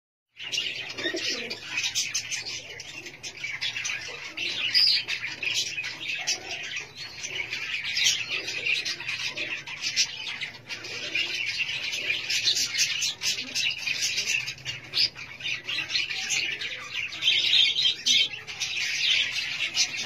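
Many caged birds chirping and chattering at once in a dense, unbroken chorus, with lower calls scattered underneath.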